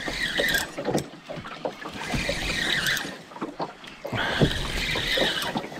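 Spinning reel's drag buzzing in two bursts, about two and four seconds in, as a hooked fish pulls line off with head shakes.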